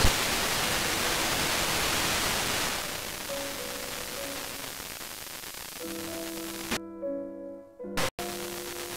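FM receiver hiss while tuning between stations on the FM band. About three seconds in the hiss softens. From about six seconds a weak station's music comes through as faint held notes, cutting out sharply for a moment near the end.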